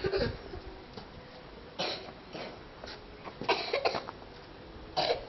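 Scattered short coughs from people in a group, several separate coughs with pauses between, a cluster of two or three about three and a half seconds in.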